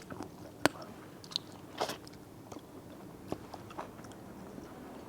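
A person chewing a mouthful of braised blood duck close to the microphone, with scattered soft wet mouth clicks and smacks. The sharpest click comes about two-thirds of a second in.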